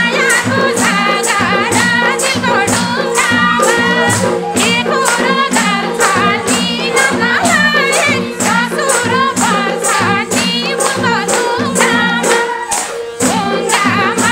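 Nepali lok dohori folk music: a melody line over a steady, quick percussion beat with tambourine jingles.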